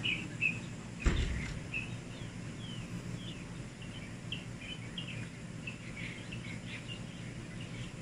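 Many small birds chirping in quick short notes that rise and fall, over a steady low background hum. A single sharp knock sounds about a second in.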